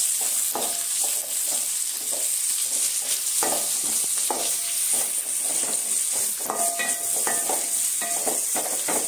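Oil sizzling in a metal kadai as whole brinjals and small onions are sautéed, with a wooden spatula scraping and stirring through them against the pan.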